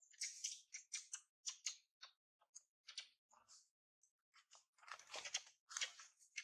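Faint, irregular dry crackling and rustling, several short crackles a second, thickening into a louder cluster about five seconds in.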